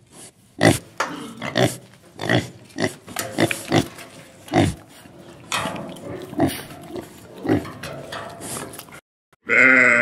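Domestic pig grunting over and over in short, sharp grunts, about two a second. After a brief pause near the end, a sheep starts a wavering bleat.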